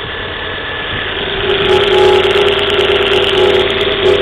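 Volvo V40 1.6 engine idling cold shortly after start, making an odd noise: a humming tone comes in about a second and a half in over the running engine, with quick light ticks.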